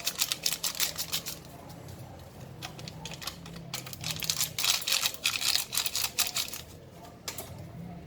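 Rapid clicking and tapping of a utensil against a mixing bowl as cake batter is stirred, coming in several bursts with short pauses between.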